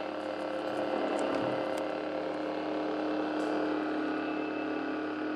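Ignited custom lightsaber's sound board playing its idle hum through the saber's speaker: a steady drone of several stacked tones.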